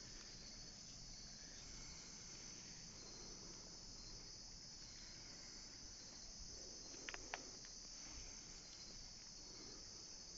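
A steady, high-pitched chorus of crickets and other night insects. A few faint sharp clicks come about seven seconds in.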